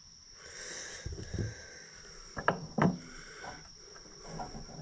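Scattered light clicks and two sharper metallic knocks close together near the middle: hands and tools handling battery cables and terminal hardware during a tractor battery install.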